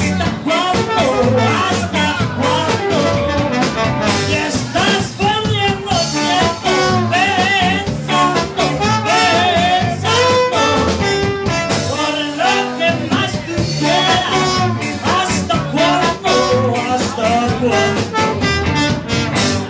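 Live ska band playing: slide trombone over electric guitars with a steady driving beat. The song stops abruptly near the end.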